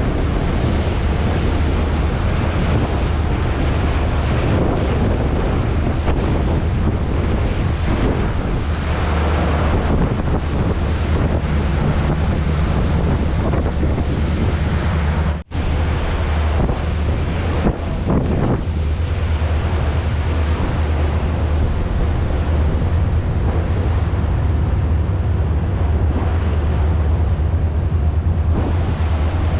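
Wind buffeting the microphone over the steady low drone of a passenger ferry's engine, with choppy water. The sound cuts out for an instant about halfway through.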